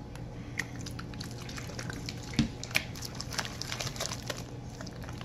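Hand squishing and kneading sticky slime mixed with shaving cream in a glass bowl: a run of small wet clicks and squelches, with one louder knock about halfway through.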